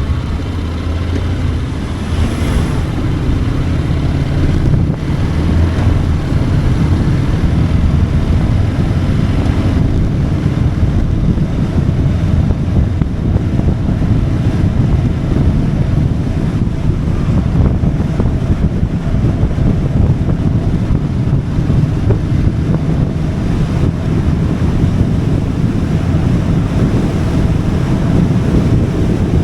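Motorcycle ridden at speed: heavy wind buffeting on the microphone over the engine, whose pitch rises in the first few seconds as it accelerates.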